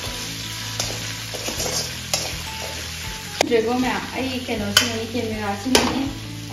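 Onions sizzling in oil in an aluminium kadhai, stirred with a perforated metal skimmer that clanks sharply against the pan several times. About halfway through, green capsicum pieces are tipped in from a steel bowl, with a voice in the background at the same time.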